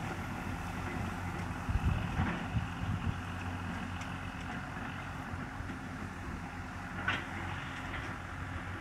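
Kubota RT-120 single-cylinder diesel engine running steadily on a rice-collecting tractor, a low even hum. A few low thumps come about two seconds in.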